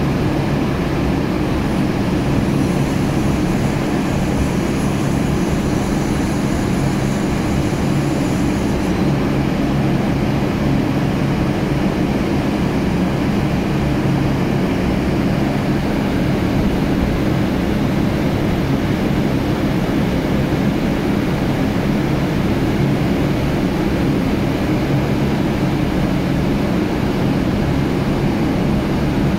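Steady low drone of heavy offshore machinery running, with several even hum tones over a rumble, and a faint high whine for several seconds near the start.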